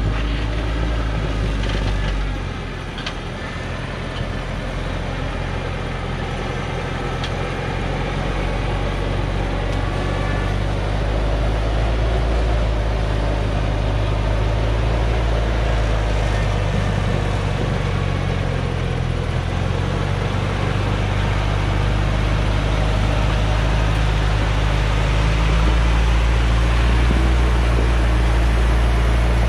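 Hoa Mai diesel cargo truck loaded with acacia logs crawling down a steep dirt hillside track, its engine running steadily at low speed and growing louder as it nears and passes close by.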